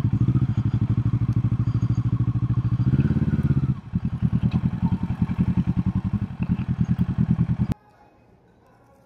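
Motorcycle engine running at low speed, its exhaust pulsing fast and evenly, with one short rev that rises and falls about three seconds in. The engine sound cuts off abruptly near the end, leaving only a faint background.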